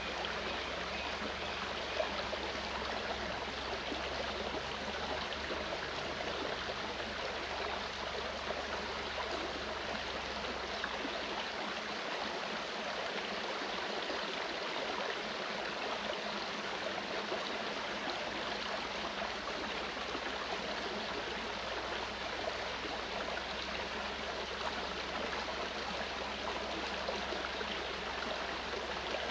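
Clear mountain stream rushing and gurgling over rocks, a steady, unbroken water sound.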